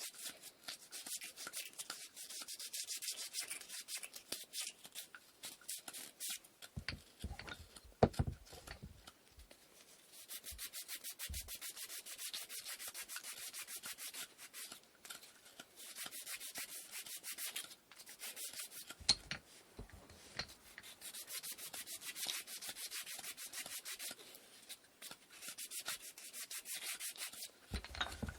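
Sandpaper rubbed by hand in quick back-and-forth strokes over the wooden parts of an inkle loom, with short pauses where a piece is knocked or set down a few times.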